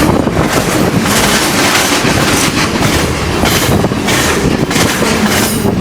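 Freight train wagons rolling past, steel wheels clattering over the rail joints in a repeating rhythm over a loud rushing noise. Near the end the high clatter falls away as the train passes.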